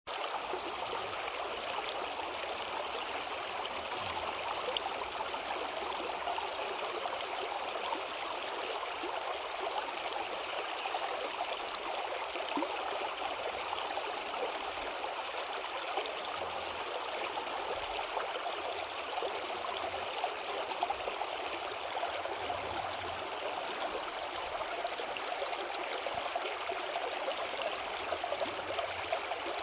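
River water flowing over rocks: a steady rushing and babbling with no change or break.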